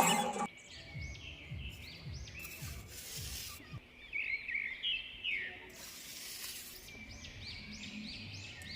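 Birds chirping over and over in quick short calls, with two brief hissing noises in the middle.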